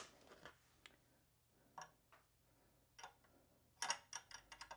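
Faint clicks of an 8 mm ratcheting box wrench on the resistance-adjustment bolt of an exercise bike: a few scattered single clicks, then a quick run of clicks near the end as the wrench is worked on the bolt again.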